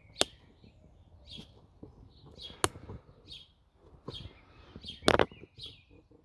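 Plastic parts of a Dyson DC04 vacuum cleaner being handled during strip-down: three sharp knocks about two and a half seconds apart, the last the loudest. Short, faint, high chirps repeat in between.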